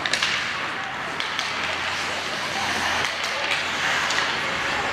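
Ice hockey play in a rink: skates scraping the ice, several sharp clacks of sticks and puck, and players' indistinct shouts.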